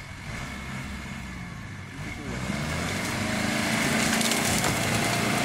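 Off-road 4x4's engine revving hard under load as it charges through swamp mud, its pitch rising and falling and growing steadily louder as it comes closer from about two seconds in.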